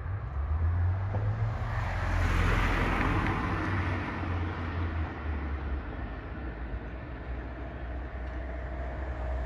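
Low drone of an approaching DD51 twin-engine diesel-hydraulic locomotive, still far off, mixed with a car passing close on the road, its tyre noise swelling about two seconds in and fading.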